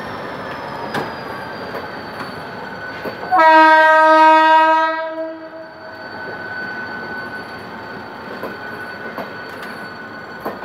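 Passenger coaches of a train hauled by a GM GT-22CW diesel locomotive rolling past, wheels clicking over the rail joints. About three seconds in, the locomotive's air horn sounds one steady blast of about two seconds, the loudest sound. Afterwards a thin, high, steady whine of the wheels continues.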